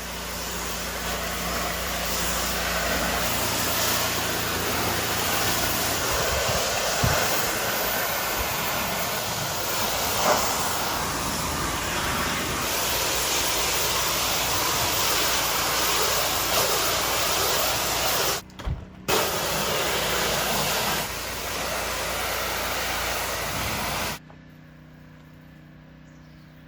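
Pressure washer running, its high-pressure water spray hissing steadily over a low motor hum. Near the end the spray cuts off suddenly, leaving a quieter low hum.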